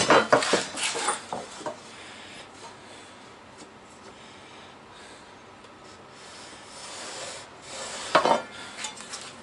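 Short scrapes and rubs on wood in the first second and a half, then a quiet stretch, and another brief scrape about eight seconds in: things being handled and slid on a wooden workbench top while a bench vise is lined up.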